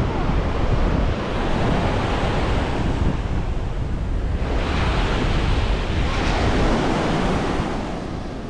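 Ocean surf breaking and washing up the beach, with wind buffeting the microphone as a low rumble. The wash swells a couple of times from about halfway through.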